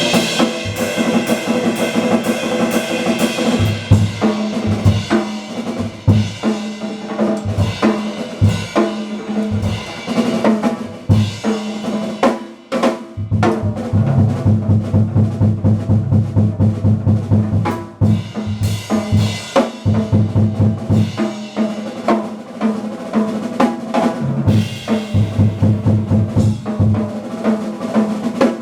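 Acoustic drum kit played live in a busy jazz pattern, with bass drum and snare strokes, rimshots and rolls. The playing breaks off briefly about 12 and 18 seconds in.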